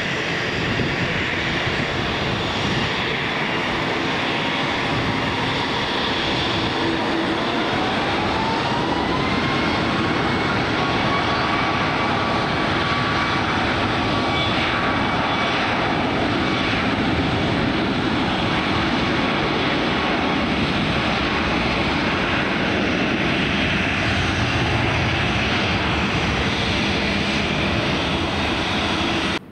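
Fixed-wing aircraft engines running loudly and steadily, with a whine that rises in pitch about seven seconds in and then holds steady.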